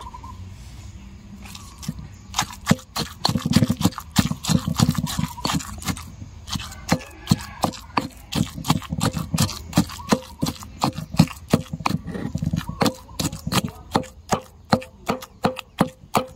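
Kitchen knife chopping food on a cutting board: a steady run of sharp chops, about three a second, starting about two seconds in.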